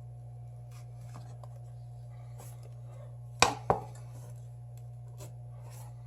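Small repair tools handled on a workbench: faint scattered clicks, then two sharp knocks about a third of a second apart a little past the middle, over a steady low electrical hum.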